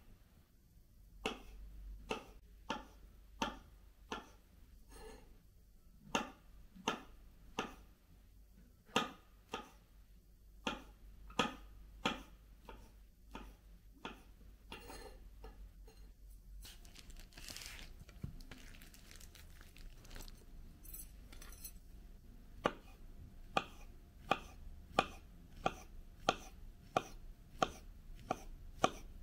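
A knife chopping food on a cutting board in sharp single strokes, about one to two a second. The chopping pauses for a few seconds in the middle, then goes on more steadily at about two strokes a second.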